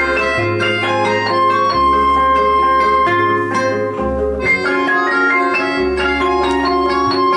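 Live band playing an instrumental passage: keyboard and acoustic guitars over a bass line that changes note about every second and a half, with a long held high note through most of it.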